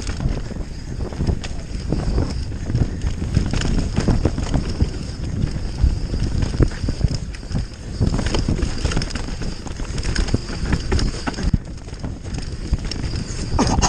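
Mountain bike descending a dry forest trail at speed: tyres rumbling over dirt and roots, with a constant clatter of small knocks and rattles from the bike, and wind buffeting the microphone.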